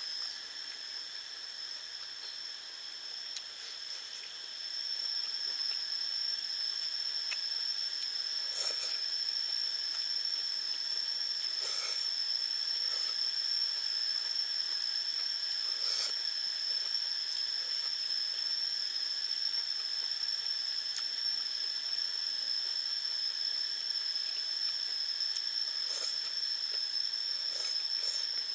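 Steady, unbroken high-pitched drone of insects in the forest. A few short clicks and taps of chopsticks and a bowl come through it as the food is eaten.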